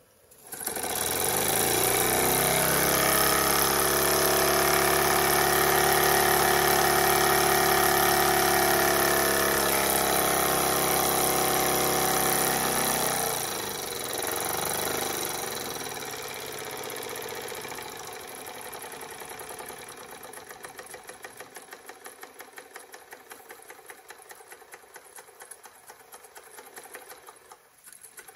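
Jensen 25GR toy steam engine running under steam: a loud, steady mechanical hum with steam hiss starts about half a second in. About 13 seconds in it drops to a quieter, quick rhythmic chuffing and ticking.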